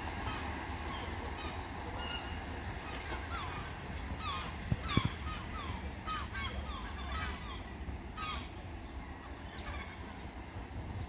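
Birds calling: a run of short, falling calls repeating every fraction of a second, over a steady low rumble, with two sharp clicks about five seconds in.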